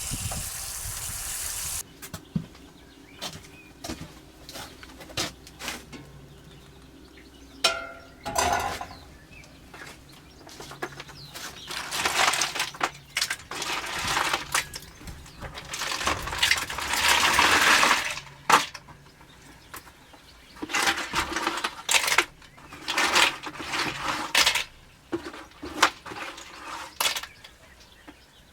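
Clattering of hard objects against pots and dishes, many separate knocks and clinks, with a few longer stretches of rushing noise like running or pouring water.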